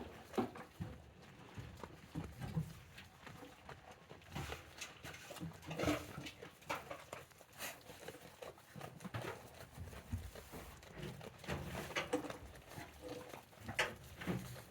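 Goats moving about in their hut, hooves clattering and knocking at irregular intervals.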